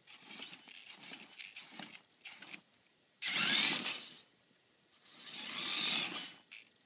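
Tekin ROC412 brushless motor driving an RC crawler in short bursts, with drivetrain and tyre noise: a sudden loud burst about three seconds in and a longer one that swells and fades about five seconds in. The motor runs without knocking after its firmware was downgraded to an older version.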